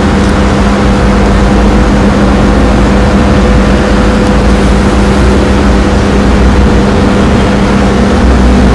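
Loud, steady electrical and machinery hum in a power distribution room, with fixed humming tones over a low rumble. It is the running noise of the energised switchgear and the equipment around it.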